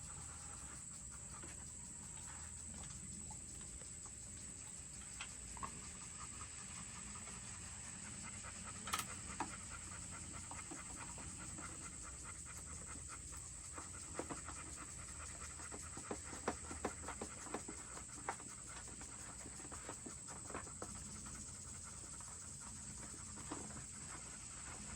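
Scattered light clicks and taps of plastic feeder ports and washers being fitted into a bucket, most of them in the second half, over a steady low rushing background.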